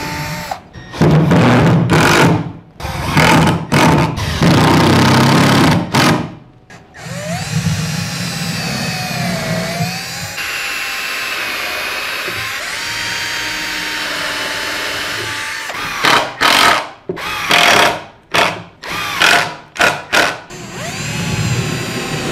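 Cordless drill boring holes into pine, run in several loud bursts, then a quieter stretch, then a quick series of short trigger pulses near the end.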